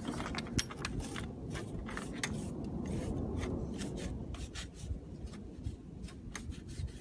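A rag soaked in rubbing alcohol wiping over a freshly sanded bonding surface to clean it before adhesive goes on. It makes a soft rubbing with many small clicks and taps.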